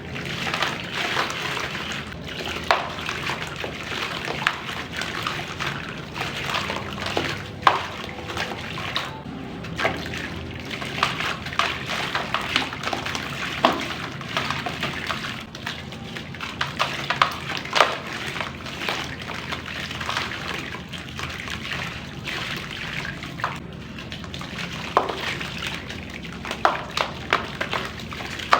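Dry black clay crumbling and breaking up in water: steady watery sloshing with many irregular sharp cracks and crunches as the pieces give way.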